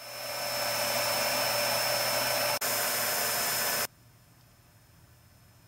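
Bagless upright vacuum cleaner switched on, its motor spinning up over about a second and then running steadily. The sound drops out for an instant once and then cuts off suddenly about four seconds in.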